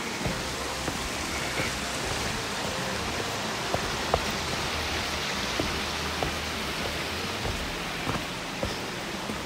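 Steady hiss of rushing water, with scattered light ticks at irregular moments.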